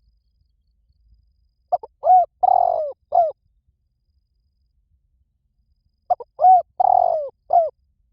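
Spotted dove cooing: two phrases a few seconds apart, each a short run of low, bending coos with a longer drawn-out note in the middle.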